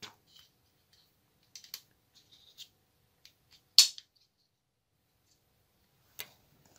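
Rubber bands being loaded into the magazine of a wooden rubber band gun, with sharp clicks as the magazine wheel is turned back one position after each band is hooked on. There are about five clicks, the loudest about four seconds in.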